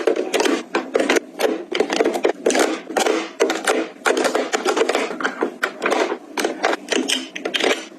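Quick, irregular clicking, tapping and rustling of small items being handled and set in place, as in packing and organizing.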